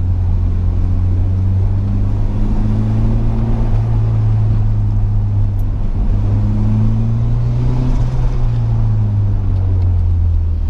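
Turbocharged Nissan GA16DE 1.6-litre four-cylinder engine in a B13 Sentra, heard from inside the cabin while driving. The engine note rises under acceleration, dips briefly about six seconds in, climbs again and drops off near the end, with the turbo spooling.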